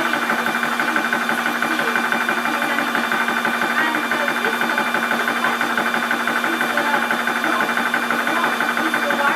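Topa portable 12 V high-pressure PCP air compressor running steadily under load while it fills a 0.25 L air cylinder, its piston pumping in a fast, even pulse.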